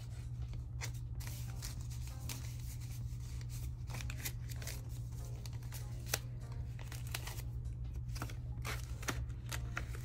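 Paper banknotes being handled, counted and slid into cash envelopes: a run of crisp rustles and light taps, over soft background music.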